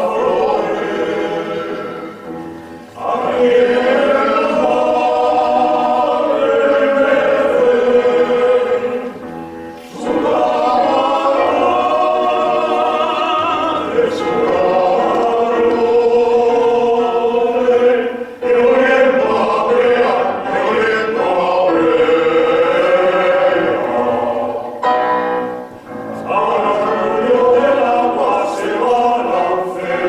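Men's choir singing a chorus in long held phrases, broken by short pauses about every seven or eight seconds.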